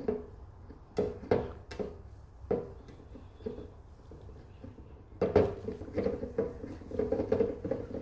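Activated charcoal granules pouring out of a Toyota Corolla's plastic fuel filter and charcoal canister assembly, rattling inside the housing and pattering onto a heap, with a few sharp knocks of the plastic shell. The rattle grows louder and more continuous about five seconds in.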